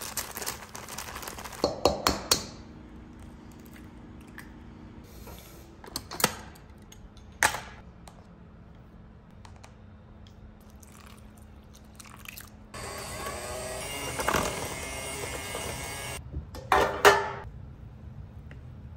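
Hand-mixing cornbread batter in a stainless steel mixing bowl: scattered sharp knocks and clinks against the bowl, and a stretch of stirring and scraping about two-thirds of the way through, over a faint steady hum.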